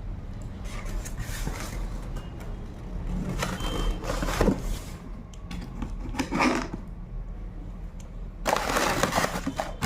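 Cardboard box and thermocol (polystyrene foam) packing being handled: irregular rustling, scraping and rubbing, with a louder, denser stretch of rustling near the end.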